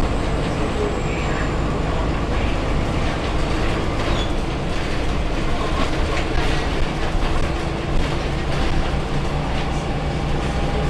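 Interior of a Scania L94UB city bus on the move: a steady diesel engine drone with constant small rattles and clicks from the body and fittings.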